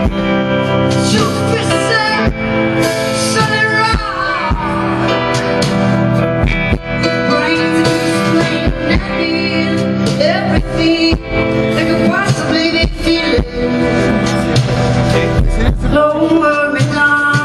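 Live band music with guitar and a woman singing over it.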